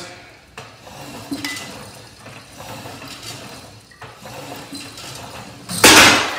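Marcy Diamond Elite home gym's cable row with 50 pounds loaded: repeated metallic clinks as the weight plates rise and settle with each pull. Near the end comes a loud burst of rustling noise as the camera is handled.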